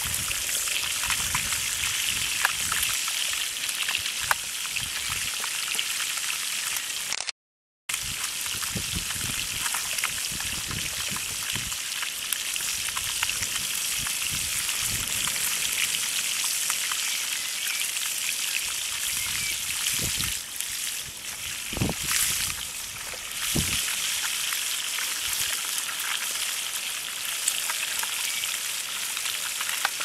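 Fish frying in hot oil in a pan over a wood fire: steady, dense sizzling and crackling of the oil. The sound cuts out completely for about half a second some seven seconds in.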